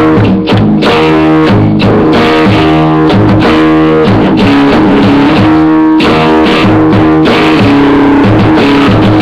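Rock music on guitar: strummed chords changing in a steady rhythm over low bass notes, loud throughout.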